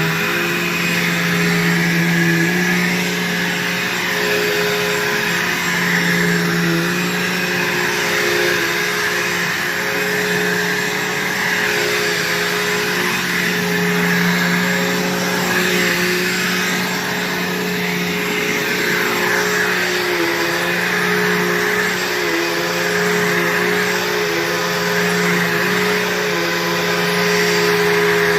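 Bissell PowerForce upright vacuum cleaner running steadily with a motor hum and whine, its sound swelling and easing a little every couple of seconds as it is pushed back and forth over the floor.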